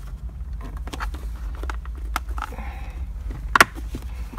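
Plastic trim clips on a Chevy Volt's shifter surround snapping into place as the trim is pressed down by hand. There are a few sharp clicks, the loudest about three and a half seconds in, amid light handling rustle over a low steady hum.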